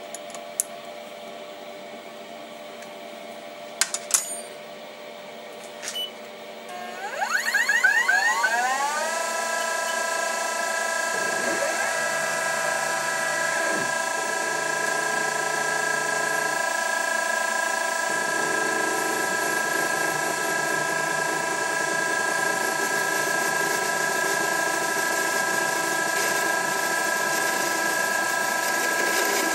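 A few light clicks, then the Denford Orac CNC lathe's spindle starts about seven seconds in: its whine rises in pitch over a couple of seconds and settles into a steady whine with several tones as the chuck spins, with no cutting yet. A lower hum comes and goes a few times in the middle.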